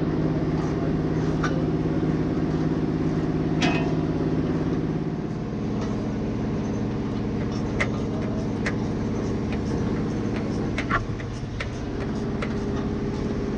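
A vehicle engine running steadily, its note shifting about five seconds in and again near the end, with a few light clicks and knocks over it.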